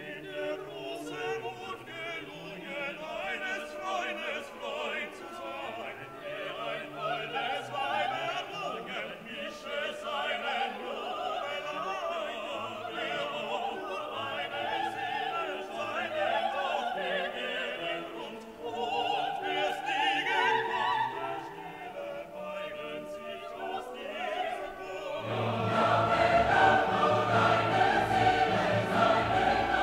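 Background classical music with singing and orchestra, growing fuller and louder about 25 seconds in.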